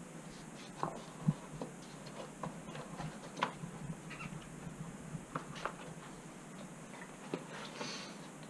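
Scattered light clicks, taps and rubbing as a foam rim insert is worked into a mountain bike tyre on its wheel.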